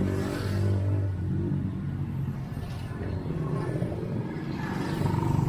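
Street traffic: a motor vehicle's engine running close by, fading over the first couple of seconds, then another engine growing louder near the end.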